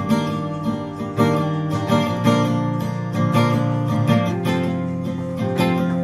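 Background music: acoustic guitar playing.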